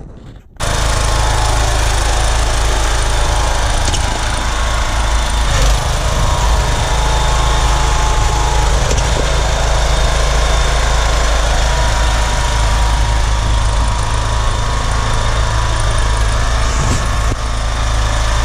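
Homemade buggy's lawnmower engine running steadily on a test drive.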